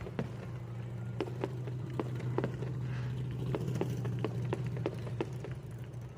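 Firework pops and crackles, many short sharp cracks at irregular intervals, over a steady low hum.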